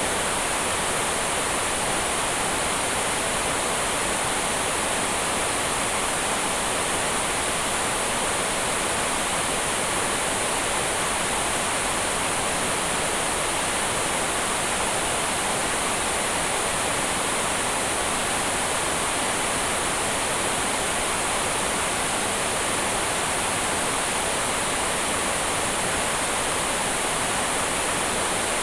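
Analog television static: a steady, even hiss of white noise, brightest in the high end, unchanging throughout.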